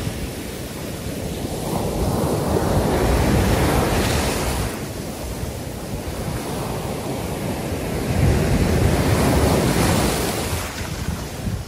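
Sea waves breaking and washing up the sand at the shoreline, the surf rushing in and growing louder twice.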